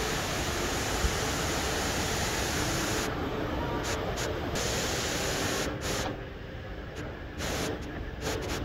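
Steady rushing water noise of the Rain Vortex indoor waterfall. It drops in level about six seconds in, with a few short swells after.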